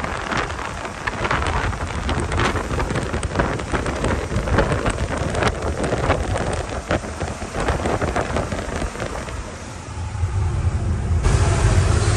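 Wind buffeting a phone microphone held out of a moving truck's window at highway speed, crackling constantly over road and engine noise. About eleven seconds in it changes suddenly to the steadier low drone inside the truck's cab.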